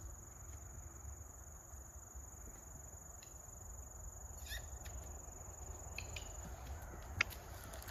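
Insects in the surrounding woods making a steady, high, unbroken drone that stops about two-thirds of the way through, over a faint low rumble. A few faint clicks, and one sharp knock about seven seconds in.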